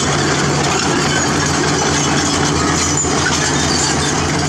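Heavy diesel earthmoving machinery running steadily: a constant engine drone with a dense noisy wash over it.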